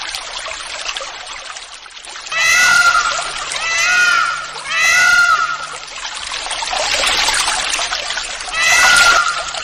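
Peacock calling four times: loud, wailing calls, each rising and then falling in pitch, the first about two seconds in and the last near the end. Under the calls is a steady hiss of rain and running water.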